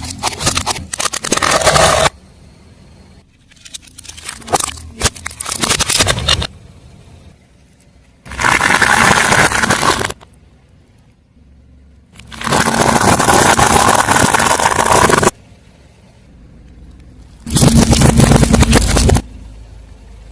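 A car tyre rolling over and crushing objects, in separate crackling, cracking bursts: short crackles early on and near the middle, then three dense crunching bursts of two to three seconds each.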